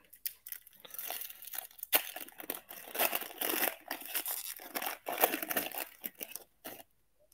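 Shiny foil wrapper of a trading-card pack being torn open and crinkled as it is pulled off the cards: a dense, crackling rustle with many sharp snaps, stopping just before the end.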